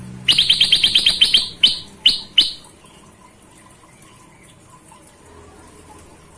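Kutilang emas songbird calling: a quick run of about ten sharp, falling chirps, then three slower ones, before it goes quiet.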